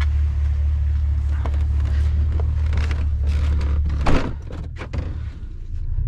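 Steady low rumble of a vehicle on the move, with light rattles over it. About four seconds in comes a sharp click, and after it the rumble grows quieter.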